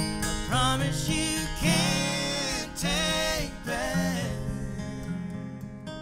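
Live bluegrass band music: a lead line of long, sliding notes over acoustic guitar and bass. The lead stops a little after four seconds while the guitar carries on.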